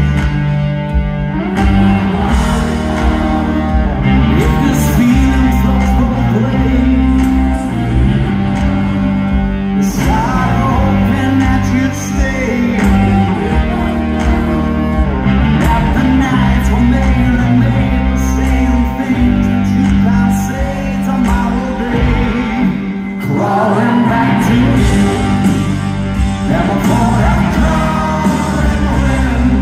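Live rock band playing loud through a concert PA: electric guitars, bass and drums with a sung vocal, heard from the crowd in a large hall. The bass and drums drop out for a moment about three-quarters of the way through, then come back in.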